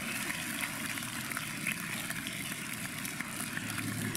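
Steady murmur and background noise of an audience crowd in a large hall.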